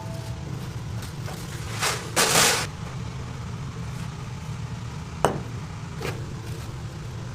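Steady low machine hum with a brief hiss about two seconds in and a sharp click or knock a little after five seconds.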